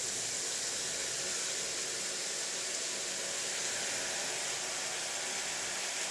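Chopped tomatoes sizzling in hot oil with fried onions in a cooking pot, a steady even hiss.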